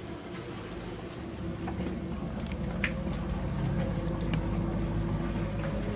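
Twin Chrysler V8 inboard marine engines idling: a steady low drone that grows louder about two seconds in, with a few light clicks over it.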